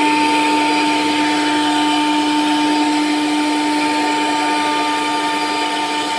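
CNC router spindle running steadily while milling wood: a constant motor whine over the rushing noise of the cut.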